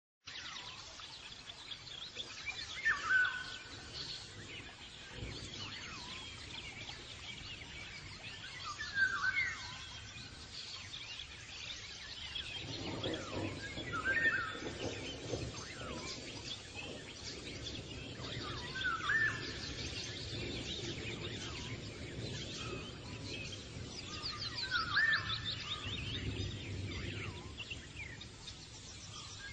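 Outdoor bird ambience: one bird call comes back about every five to six seconds, with fainter chirps around it. A low, noisy rumble joins about twelve seconds in.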